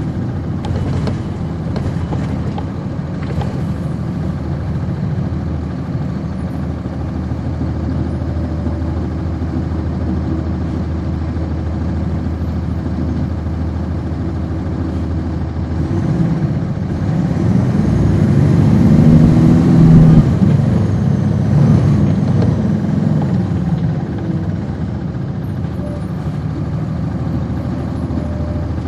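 A 1999 NovaBus RTS city bus's Cummins ISC diesel engine, heard from inside the bus as it runs along. About two-thirds of the way through, the engine note rises and grows louder as the bus pulls harder, then eases back to a steady drone.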